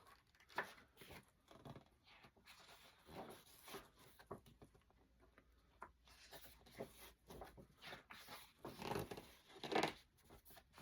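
Faint rustling and light clicks of record packaging and paper inserts being handled, with a few louder handling knocks near the end.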